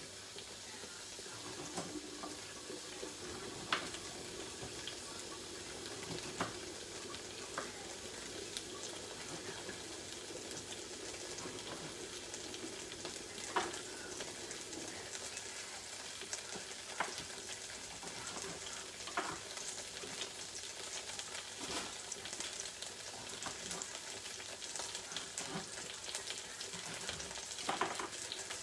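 Chunks of baby aubergine frying over high heat in a stainless steel sauté pan: a steady sizzle. A few light knocks sound now and then.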